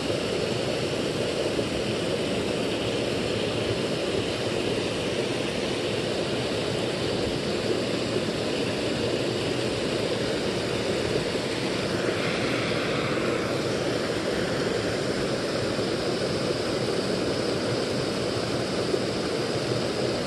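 Steady rushing of a small creek spilling over a low waterfall and riffle of logs, an even unbroken water noise.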